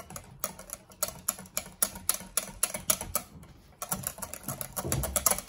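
Wire whisk beating a soft butter mixture by hand in a glass bowl, the tines clicking against the glass several times a second. The beating eases off a little past halfway, then picks up again, faster and louder.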